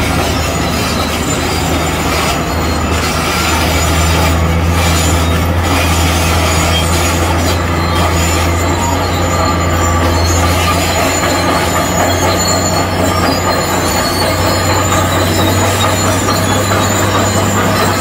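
Crawler bulldozer's diesel engine running steadily under load, with a high metallic squeal from its steel tracks as it moves.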